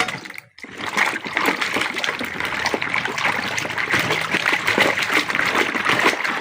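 Water splashing and trickling, a steady crackly spatter, as the toy guns are washed.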